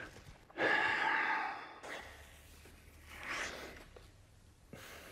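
A man's heavy breathing: a loud, sharp breath about half a second in that lasts over a second, then a second, softer breath about three seconds in.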